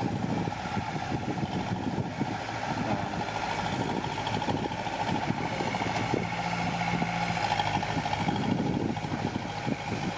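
Diesel engine of a small bulldozer running steadily, with scattered irregular knocks.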